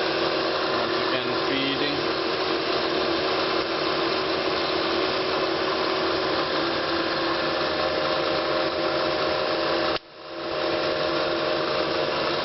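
ProtoTRAK K2 CNC knee mill's variable-speed head running with a steady whine made of several tones. The sound cuts out sharply about ten seconds in, then builds back up over a second or so.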